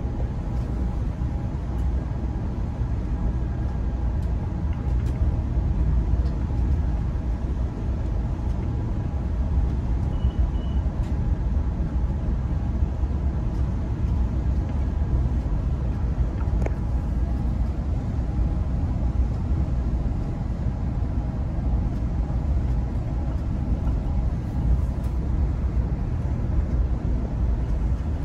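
Steady low rumble of an Amtrak Pacific Surfliner passenger train running at speed, heard from inside a bi-level passenger car, with a faint steady tone above the rumble.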